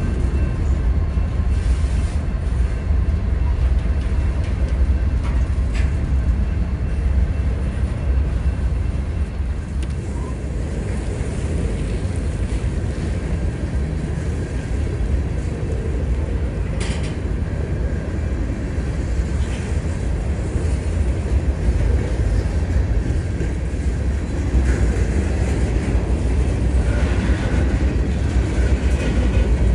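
A freight train of BNSF covered hopper grain cars rolling past close by, a steady rumble of steel wheels on the rails.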